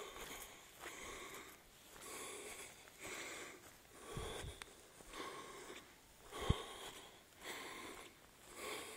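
A person breathing hard and evenly, about one breath a second, from the effort of walking uphill, with a couple of dull thumps from footfalls or the phone being handled.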